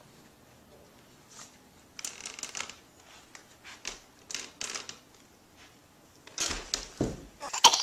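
Faint rustling and clicking, with a louder rustle about six and a half seconds in.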